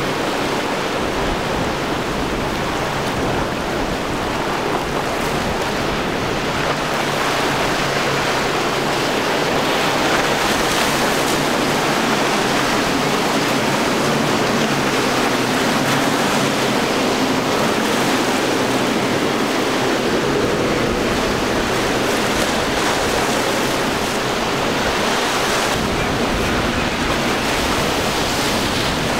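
Surf and churning water with wind on the microphone, over the steady low hum of a center-console boat's outboard engines.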